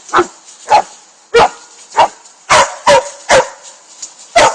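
A dog barking repeatedly: about eight short, sharp barks, roughly one every half second. The walker reads it as the dog protesting that the others are having fun without him.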